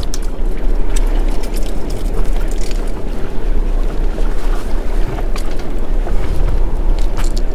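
Steady wind buffeting the microphone on a small open boat, with water washing against the hull and a few light knocks.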